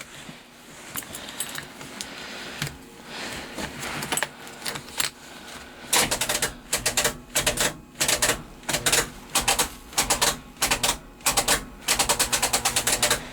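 Starter on a 454 big-block engine clicking and chattering rapidly when the key is turned, without the engine cranking over. The chattering starts about six seconds in and comes in quick clusters, two or three a second. The owners take it for a bad starter.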